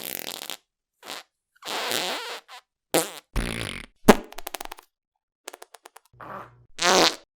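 A quick succession of separate farts of different lengths, from short pops to longer drawn-out ones, with brief silences between. Two of them sputter as rapid runs of tiny pulses, and the loudest comes near the end.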